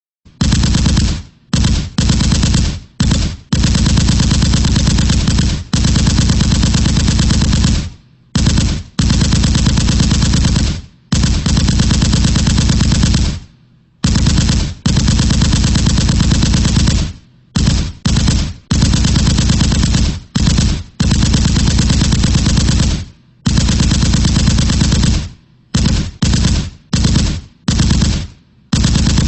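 Machine gun firing on full automatic in bursts: a few short bursts, then long runs of several seconds, with brief pauses between them and a rapid, even rate of fire.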